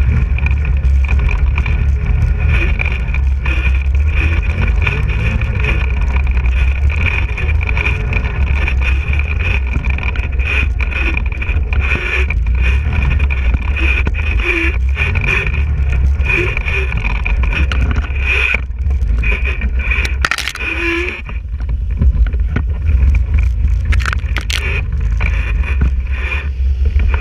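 ATV engine running while the quad rides over a rough, muddy forest track, a steady low rumble. A few sharp knocks come about two-thirds of the way through, along with a brief drop in the engine sound.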